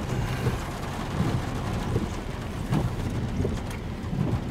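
Thunderstorm wind gusting against the microphone, with rain falling and a few sharp taps.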